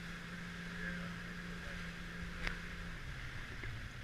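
Motorboat engine running steadily under wind and water noise, its note dropping lower about three seconds in. A brief click about two and a half seconds in.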